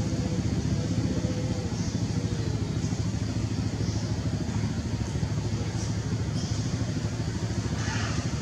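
A motor engine running steadily, a low even rumble that holds throughout.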